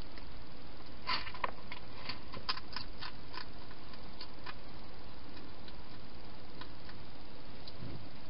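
Wild hedgehog eating at a bowl inside a plastic feeding box: a run of quick, irregular clicks and crunches of chewing, strongest between about one and four seconds in, over a steady hiss.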